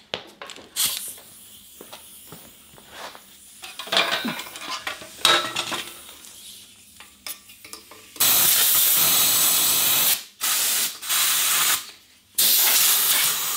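Welding an O2 sensor bung onto a steel exhaust pipe: three runs of steady hissing welding arc, each about one and a half to two seconds long, starting about eight seconds in and stopping abruptly between runs. Before them, light clanks and knocks as the pipe is handled on its stand.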